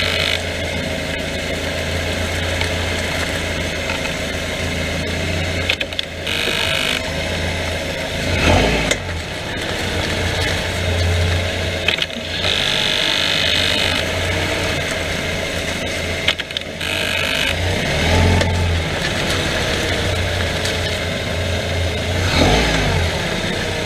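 Mazda 3 with its engine running steadily, and a few sharp clicks and pops from the front end at irregular moments.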